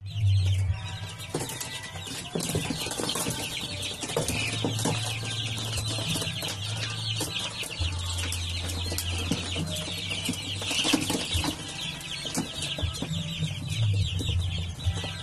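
A flock of young heritage chickens peeping and clucking together, a dense, continuous chatter of many short calls.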